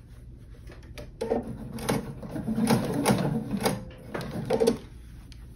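Sewing machine stitching the binding seam through layered quilted fabric. It runs in one stretch of about three and a half seconds, starting about a second in and stopping near the end.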